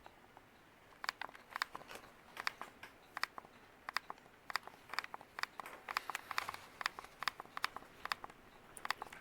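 Light, irregular clicks and ticks, a few a second, from a Westinghouse Apollo Elite ceiling fan running on medium speed.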